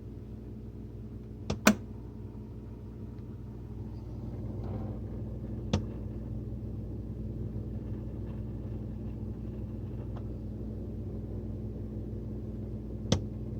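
Whirlpool WSF26C3EXF01 refrigerator giving a sharp pop from its top about two seconds in, just after a smaller click. Lighter clicks follow around six and thirteen seconds, over a steady low hum. The popping comes from a faulty refrigerator damper control diffuser, the air damper between freezer and fridge.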